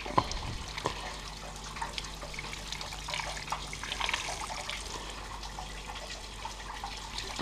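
Garden hose water spraying onto a painted metal panel and splashing onto concrete, rinsing off caustic soda paint stripper, as a steady hiss. A single sharp knock sounds about a quarter second in.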